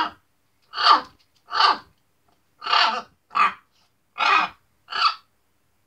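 Blue-and-gold macaw vocalizing: seven short, harsh calls in a row, each under a second apart.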